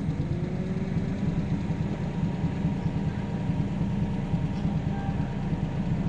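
A steady low rumble with no clear beginning or end.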